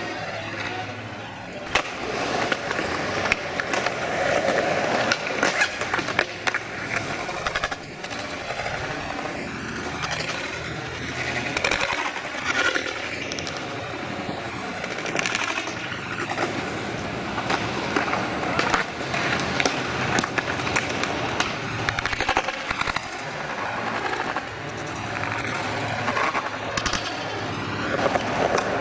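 Skateboard wheels rolling on concrete, with frequent sharp clacks and knocks of boards hitting the ground.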